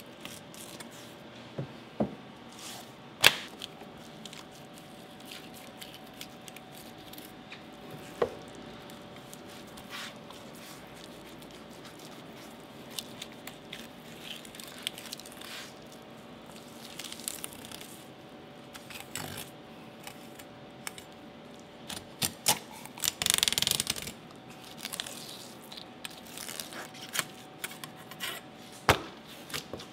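Knife filleting a whole olive flounder on a plastic cutting board: quiet slicing and scraping of the blade along the bones and fins, with occasional sharp taps of the knife on the board. A rasping run of cuts comes about three-quarters of the way through, over a faint steady hum.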